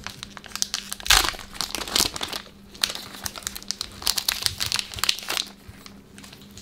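Foil booster-pack wrapper of a Pokémon trading card pack crinkling and tearing as it is pulled open, in a run of crackly bursts that die down about five and a half seconds in.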